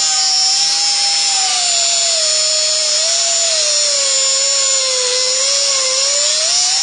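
Abrasive cutoff wheel on a handheld cutoff tool cutting through a tape-wrapped, steel-braided rubber hose: a loud, steady high whine with a grinding hiss. The pitch sags as the wheel bites into the hose and climbs again about six seconds in as the load eases.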